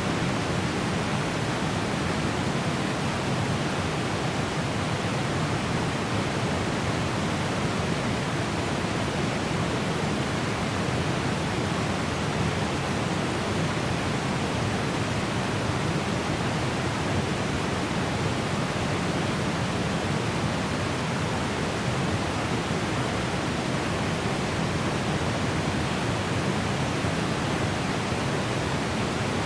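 Small but strong waterfalls heard from a medium distance: a steady, unbroken rush of falling water.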